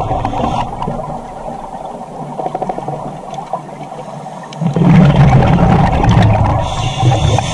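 Scuba diver breathing through a regulator underwater: a quieter stretch of inhaling, then a loud burst of exhaled bubbles starting about four and a half seconds in.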